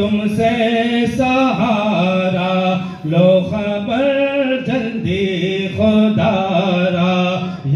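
Male chanting of an Islamic devotional recitation, melodic, with long held notes and short breaths between phrases.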